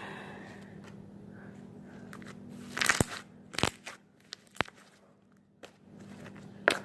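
Homemade glue slime being squished and worked by hand, giving a few sharp pops and crackles as trapped air bursts: a cluster a little under three seconds in, then single pops about a second apart and one more near the end.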